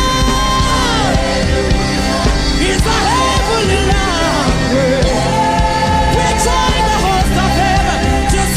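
Live church praise band playing with a sung vocal line, the singers holding long notes over a steady, full band accompaniment.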